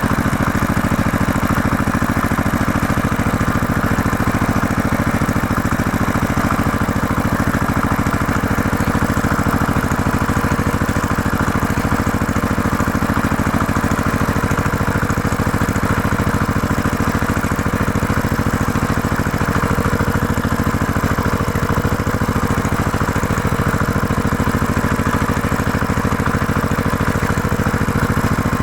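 Tractor engine idling steadily, an even, unchanging rumble with a regular firing beat.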